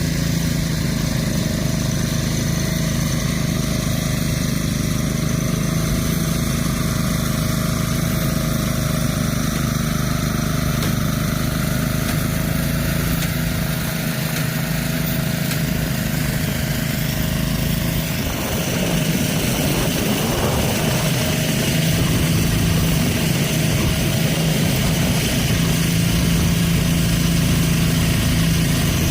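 Small engine running steadily. About eighteen seconds in, its hum dips briefly and a louder hiss comes in over it.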